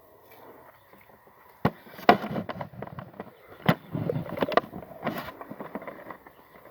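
Close handling noises: a few sharp clicks and knocks, the loudest about two seconds in and another a little later, with rustling and crackling between them.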